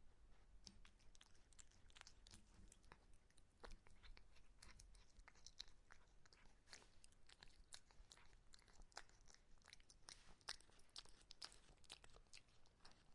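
Cat eating, its chewing heard as quiet, irregular crunches, several a second.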